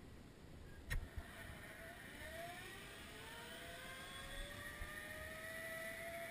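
Zip line trolley pulleys whining along the steel cable, the pitch rising steadily and growing louder as a rider picks up speed. A sharp click comes about a second in.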